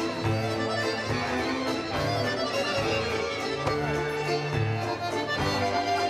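Accordion playing a melody of quick-changing notes, accompanied by a symphony orchestra's strings.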